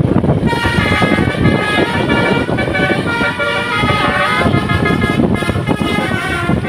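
Basuri 'telolet' bus horn, a multi-tone horn, playing a tune of short stepping notes, starting about half a second in, over a loud low rumble.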